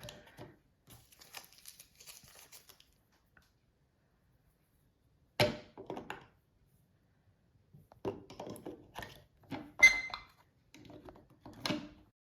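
Handling noise of AA batteries being fitted into an Eve Thermo smart radiator valve: a faint crinkle of packaging at first, a single sharp knock about five seconds in, then a run of plastic clicks and knocks near the end as the batteries and battery cover are put in place.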